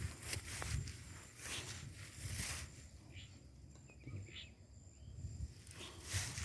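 Footsteps rustling through leaf litter and brush, a step about every second, sparser in the middle. A faint, thin, high insect whine sounds on and off behind them.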